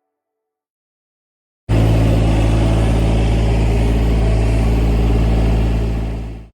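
Diesel engine of a Sany SY35U mini excavator running steadily with a deep hum. It starts abruptly about two seconds in and dies away near the end.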